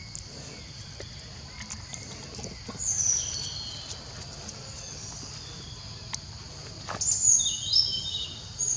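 Wild birds calling: a short whistled phrase about three seconds in, then a quick run of stepping high notes around seven to eight seconds in, over a steady high background hiss and a few faint ticks.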